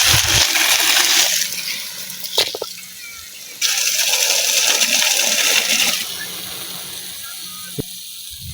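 Rain gun irrigation sprinkler spraying water: a loud hiss of spray that swells at the start and again about three and a half seconds in, easing off in between, with a couple of short clicks.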